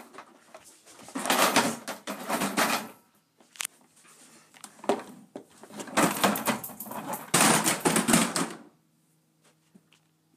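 Plastic toy train being handled and carried down carpeted stairs: its plastic parts and wheels rattle and clatter in two longer spells of clicks and knocks, with a shorter knock in between.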